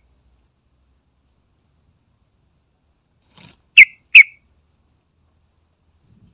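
Yellow-vented bulbul giving two short, loud call notes about a third of a second apart, a little past halfway; otherwise quiet.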